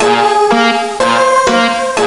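Electronic keyboard music, a tune whose notes change about twice a second in a repeating pattern.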